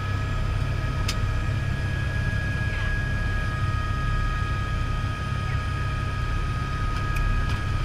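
Helicopter turbine engine and main rotor running on the ground, heard from inside the cabin: a deep, steady rotor drone with a high turbine whine over it. A sharp click about a second in and another near the end.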